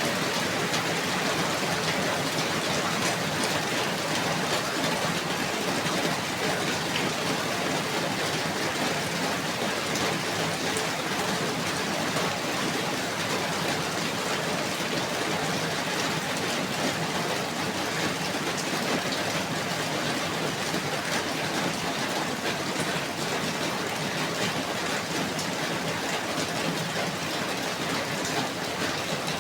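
Steady rainfall, a continuous even hiss with fine scattered drop ticks.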